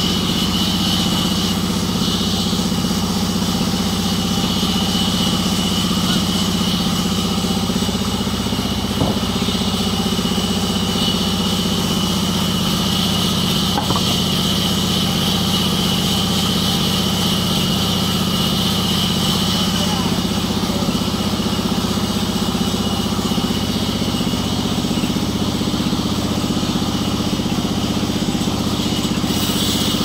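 Sawmill band saw running steadily, its blade cutting lengthwise through a jackfruit log: a constant low hum with a steady high whine over it.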